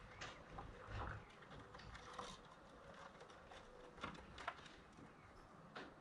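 Near-silent outdoor ambience with a few faint, scattered light ticks and taps.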